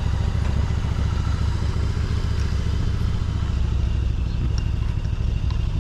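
Motorcycle engine idling steadily, a low, rapid, even firing pulse.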